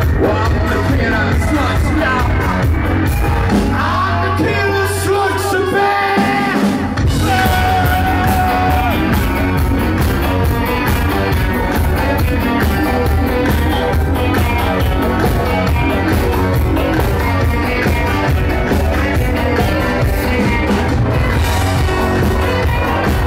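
Live band with electric guitars, bass, drums, keyboard and saxophone playing loud, driving dance-punk, with shouted singing. About four seconds in the bass and drums drop out for a few seconds, then the full band comes back in.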